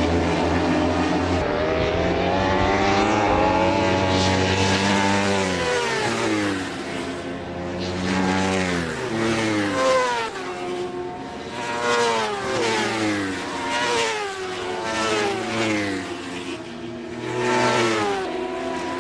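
Racing motorcycle engines at high revs, the pitch repeatedly climbing and then dropping as the bikes accelerate, shift and pass, several times over.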